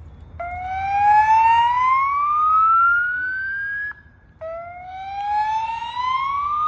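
Fire alarm evacuation signal sounding its whoop tone: a loud rising sweep lasting about three and a half seconds, a brief break, then the sweep starting again from the bottom. It is the building's signal to evacuate, played between the recorded voice announcements.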